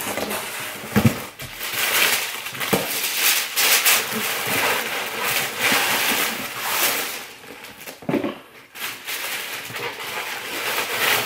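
Tissue paper rustling and crinkling as it is handled and pulled out of a cardboard shipping box, with a few soft knocks of the cardboard.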